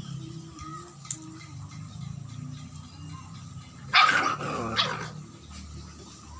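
A dog barking in one short, loud burst about four seconds in.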